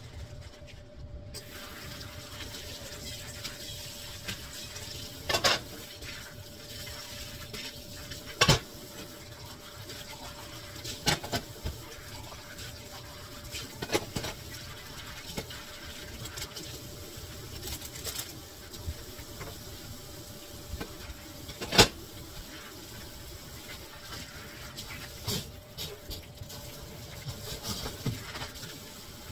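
Water running steadily from a tap, starting about a second in, with a few sharp clinks and knocks on top, the loudest about two-thirds of the way through.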